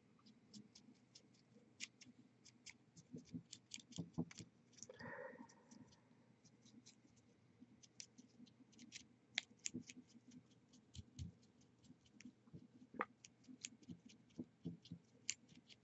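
Near silence, broken by many faint, scattered small clicks and taps of miniature-painting work: a brush and paint being handled at the desk.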